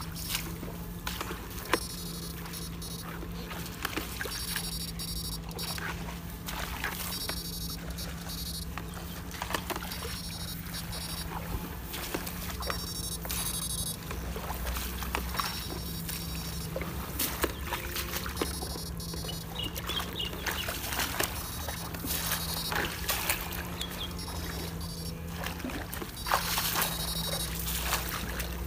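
Backpack electrofishing unit humming steadily, with stretches of high-pitched buzzing and scattered clicks coming and going as the two probes are worked through the weed-choked water.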